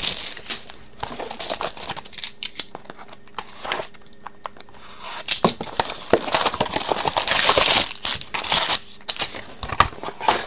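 Sealed trading-card packaging being opened: plastic wrap crinkling and tearing, with scattered clicks and taps of cardboard being handled. The rustling is loudest and longest about six to eight seconds in.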